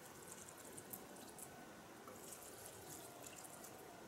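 Faint patter and trickle of water poured from a watering can onto potted balcony plants, coming as scattered light spatters.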